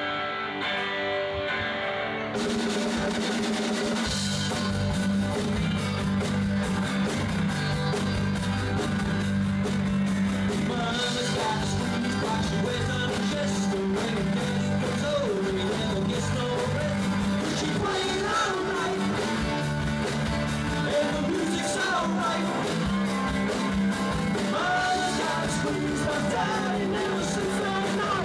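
Live rock band playing: a guitar on its own at first, then the full band with drums comes in about two seconds in, and a singer's voice joins from about ten seconds in.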